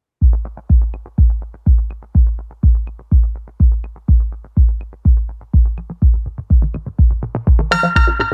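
Electronic intro music: a steady kick-drum beat of about two beats a second with hi-hat ticks, building up to a cymbal crash and fuller synth chords near the end.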